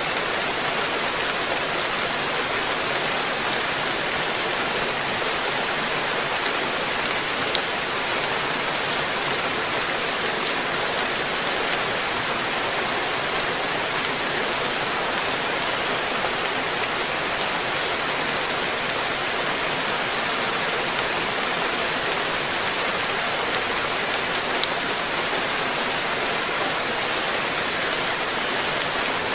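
Steady rain falling on a garden koi pond: an even hiss with a few sharp ticks of single drops scattered through.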